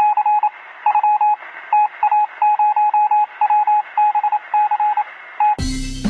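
Morse-code-style radio beeps: a single high tone keyed in quick short and longer pulses over a bed of radio hiss. About five and a half seconds in, the beeps cut off and music starts abruptly.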